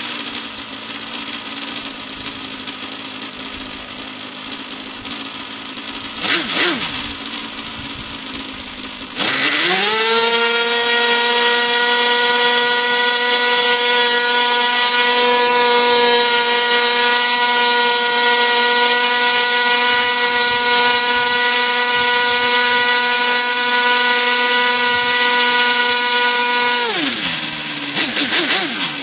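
Thunder Tiger GP42 two-stroke glow engine, ported and fitted with a tuned pipe, turning a 9x7 propeller. It runs at part throttle with a short blip about six seconds in. About nine seconds in it opens to full throttle, the pitch climbing quickly to a high, steady whine that holds for about seventeen seconds before dropping back down near the end.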